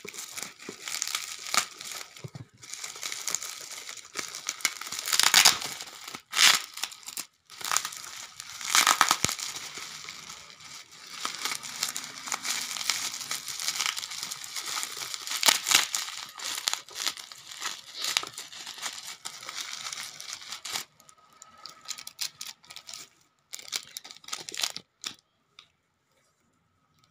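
Plastic bubble wrap crinkling and tearing as it is slit with a knife and pulled open by hand, a dense run of crackles and rips with several louder tears. About three-quarters of the way through it dies down to a few light handling clicks.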